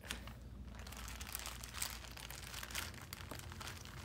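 Clear plastic bag crinkling in the hands as it is lifted out of a cardboard box and handled, with scattered small crackles.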